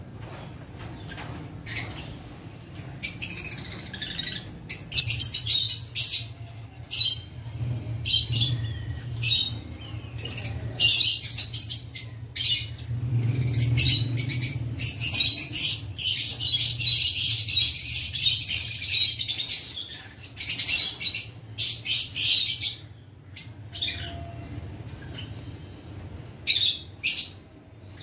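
A room full of small cage birds, finches and small parrots, chirping and calling in short overlapping bursts, busiest through the middle, over a low steady hum.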